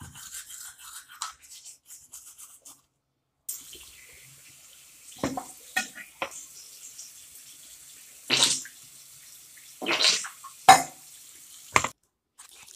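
Toothbrush scrubbing teeth in short scratchy strokes. After a brief gap, a tap runs steadily into a sink, with several louder splashes from rinsing and spitting.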